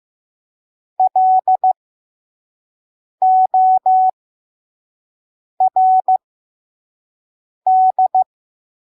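Morse code sent as a steady single-pitch beep at a slow 5 words per minute: four characters of short and long beeps with long pauses between them, spelling L-O-R-D (di-dah-di-dit, dah-dah-dah, di-dah-dit, dah-di-dit).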